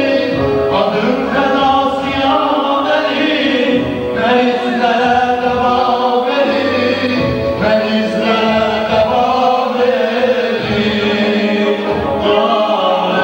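A group of men singing an Azerbaijani devotional ilahi song, with music behind the voices.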